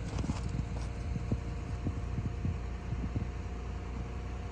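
A steady low hum with a faint steady tone over it, and light irregular low knocks scattered through it.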